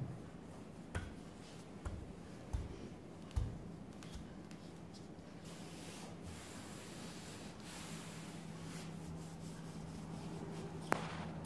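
Wooden rolling pin pressing puff pastry dough on a steel worktable, with a few soft knocks. From about five seconds in, hands rub and smooth the dough across the floured steel, ending with a small click.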